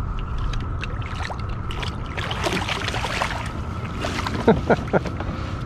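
Water splashing in a landing net as a hooked channel catfish is netted beside a kayak, with a few sharp splashes about four and a half seconds in, over a steady low rumble.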